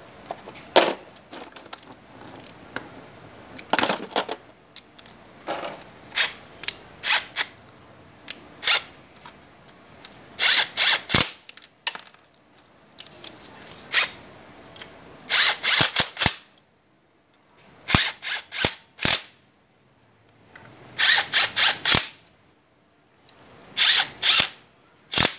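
Power tool driving bolts in short bursts of a fraction of a second, often two to four in quick succession with pauses between, as the motorcycle's stator cover is fastened back on.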